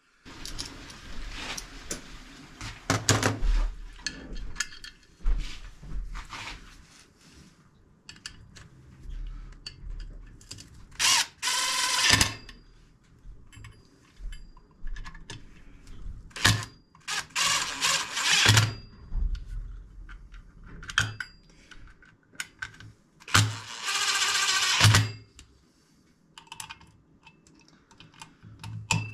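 Tools and parts of a Kawasaki G4TR engine clinking and knocking as the engine is reassembled by hand. About four times, a tool runs for a second or so.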